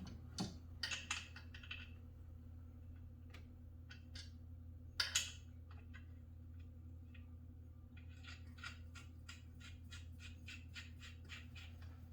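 Clicks and knocks of exercise-bike parts and tools being handled during assembly, with a louder clatter about five seconds in. Near the end comes a run of quick, even ticks, about four a second, over a faint steady low hum.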